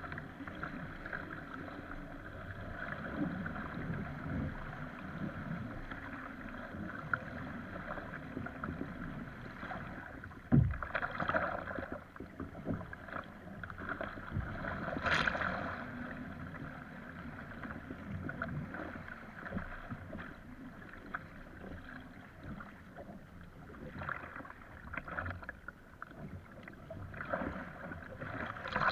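Water splashing and rushing against an Epic V7 surfski's hull as it is paddled through choppy wind waves, with irregular paddle splashes. A heavy slap of water comes about ten seconds in, and a bigger splash about five seconds later.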